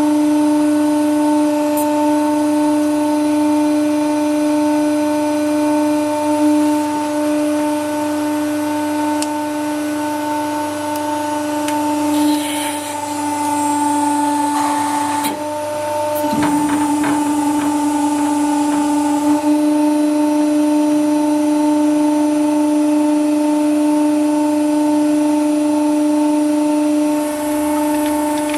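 A 100-ton hydraulic press's pump running with a steady, pitched hum. About twelve seconds in, crackling and creaking as the press crushes a rubber mallet's head, ending in a sharp crack a few seconds later as the rubber tears.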